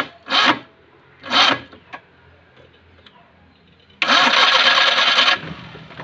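Maruti 800's carburetted three-cylinder petrol engine being cranked by the starter motor about four seconds in; it catches after about a second and a half and runs on more quietly. Three short harsh bursts come earlier, in the first second and a half.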